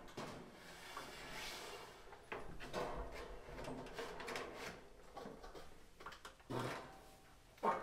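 Metal siding panel scraping and knocking against the wall as it is slid and pressed into place, in an uneven run of rubs with a few sharper knocks, the loudest near the end.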